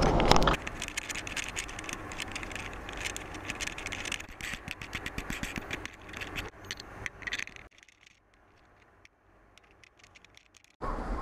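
Rapid, irregular clicking and rattling from an action camera being handled and turned about. It falls to near silence about eight seconds in, and then a steady noise cuts back in just before the end.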